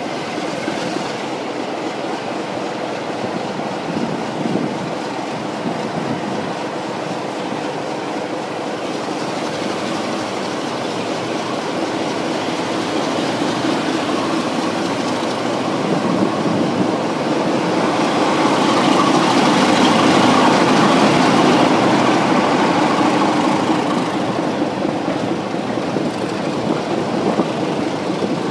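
Diesel-hauled heritage passenger train in motion, heard from an open carriage window: steady wheel-on-rail running noise and rumble that swells about two-thirds of the way through, then eases slightly.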